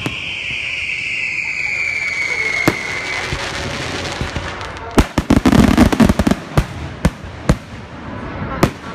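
Fireworks going off: a whistling tone falling slowly in pitch fades out about three seconds in, followed by a single sharp bang. About five seconds in comes a rapid cluster of bangs and crackles, then separate bangs roughly every half second.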